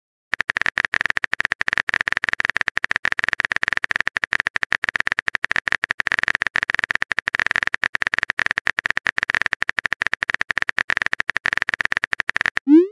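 Phone keyboard typing sound effect: a rapid, irregular run of small clicks, starting a moment in and stopping just before the end.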